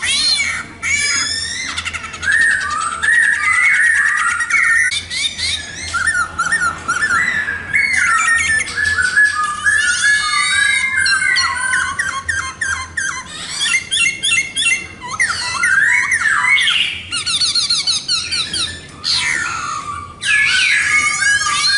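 Khướu mun laughingthrush singing a long, loud, varied song of rich whistled phrases, fast trills and harsh rattling notes, with barely a pause.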